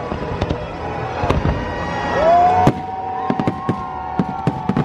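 Fireworks display going off: a rapid, irregular series of sharp bangs and crackles, over whistling tones that glide up and hold. The longest whistle starts about two seconds in and lasts about two and a half seconds.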